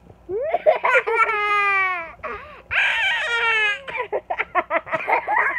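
A young child's voice: two long, high-pitched squeals, each sliding down in pitch, then a run of quick, choppy laughter near the end.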